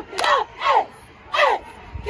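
Cheerleading squad shouting a cheer in unison, in short punchy syllables: three shouts, with a sharp crack on the first.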